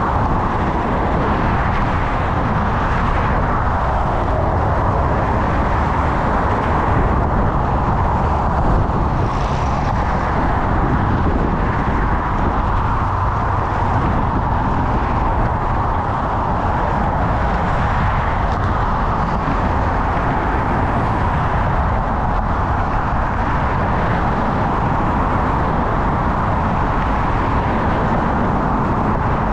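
Steady, even roar of wind and road noise picked up by a bicycle-mounted action camera while riding, mixed with motor traffic, with no breaks.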